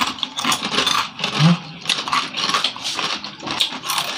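Close, irregular crunching of spicy fried macaroni snack being chewed, in quick dense crackles. A short low grunt comes about a second and a half in.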